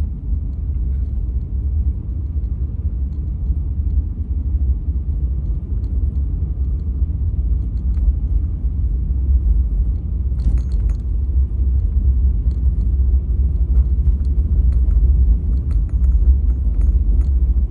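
Low, steady in-cabin rumble of a Honda Ridgeline driving slowly over packed snow, with faint scattered ticks and a brief crackle about ten seconds in.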